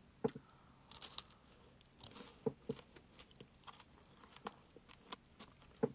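Eating a Super Cone wafer ice cream cone: faint bites and chewing, with scattered short crunches and crackles of the cone.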